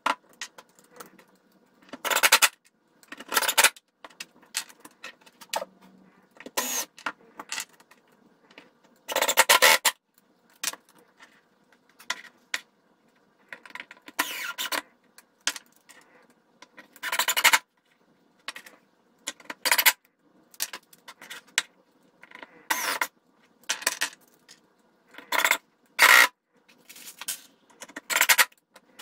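Cordless drill running in short bursts of about a second or less, a dozen or so times, as it works on the wooden brackets. Light metallic clicks and jingles come between the runs.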